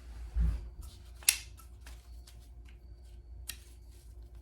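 A rifle sling and its hardware being handled and worked into a 3D-printed sling retainer on an AR-15 pistol: a soft thump about half a second in, a sharp click just after a second, then small clicks and rustles.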